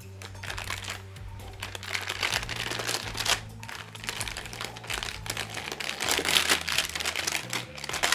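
Clear plastic sandwich wrapper crinkling and rustling as it is pulled open and peeled off a microwaved biscuit, over steady background music.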